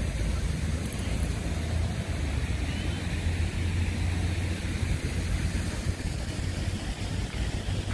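Steady city traffic noise, a continuous low rumble of buses and cars with general street hubbub.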